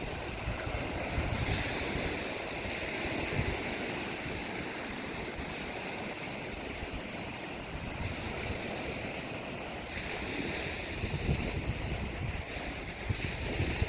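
Lake waves washing against the shore in a strong wind, with gusts rumbling on the microphone now and then.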